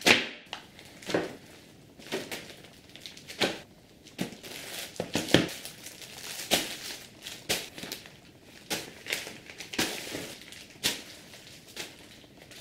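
Plastic mailer bags and padded shipping envelopes crinkling and rustling in short, irregular bursts as they are handled and set down in a pile.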